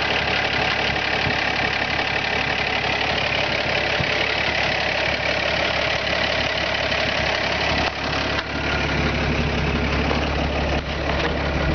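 1957 Chevy 3100 pickup's original 235 inline-six engine idling steadily. Its low rumble grows stronger about eight seconds in.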